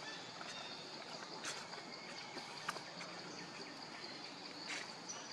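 Forest ambience: a steady, high-pitched insect drone, with a few sharp clicks about a second and a half, two and three-quarter seconds, and four and three-quarter seconds in.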